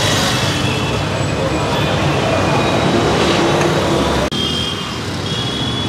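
City street traffic noise: a steady wash of passing vehicles and engines, cut off for an instant about four seconds in.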